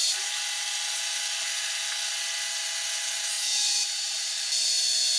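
Benchtop drill press running with a steady motor hum. The bit cuts into the workpiece in two spells as the feed handle is pulled down, about three seconds in and again from about four and a half seconds, each bringing a louder, harsher cutting noise.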